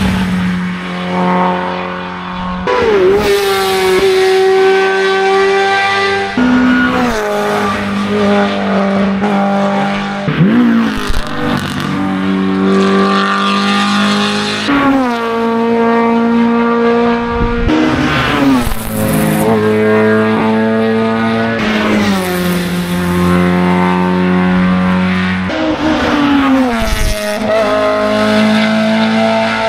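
Hill-climb race car engines running at high revs as the cars pass, their pitch jumping up and down several times with gear changes.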